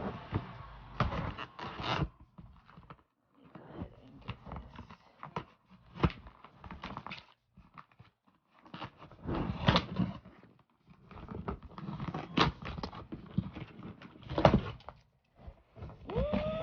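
A parcel being opened by hand: rustling, crinkling and tearing of packing paper and cardboard, with scattered clicks and knocks, coming in bursts with short pauses.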